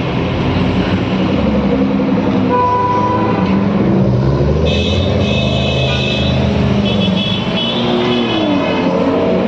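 Sports cars rolling slowly past in traffic, their engines running in a steady low rumble, with car horns honking in the second half.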